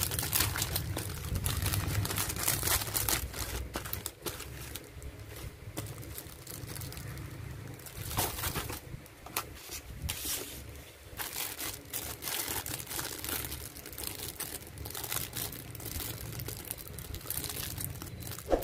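Thin clear plastic bags crinkling and rustling as they are handled and pulled open. The sound is busiest in the first few seconds, then comes in softer, irregular bouts.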